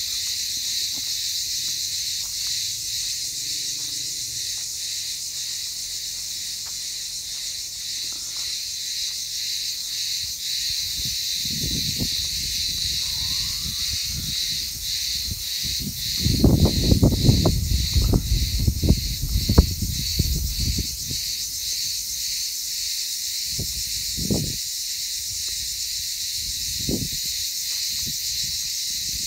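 A chorus of cicadas buzzing loudly and steadily in a high band, pulsing about twice a second. Around the middle, several seconds of low rumbling bumps on the microphone are the loudest sound, with two short ones later.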